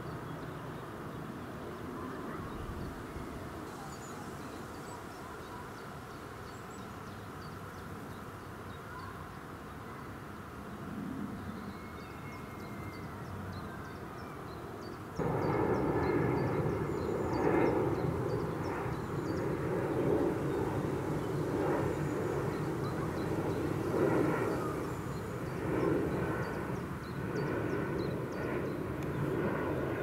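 Outdoor field ambience with faint high chirps. About halfway it cuts abruptly to a louder, steady engine drone.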